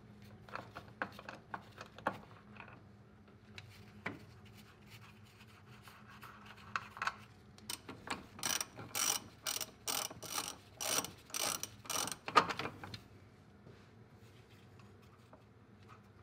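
Ratchet wrench with a deep socket clicking as it backs off the master cylinder mounting nuts. The clicks are sparse at first, then come in quick runs about two strokes a second from about eight seconds in, stopping near the end.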